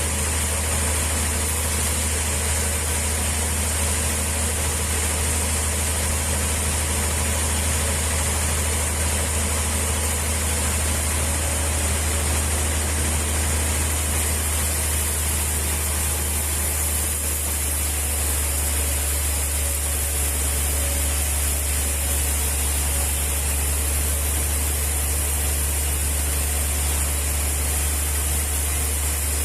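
Sawmill machinery running steadily, a low engine-like hum under a continuous high hiss.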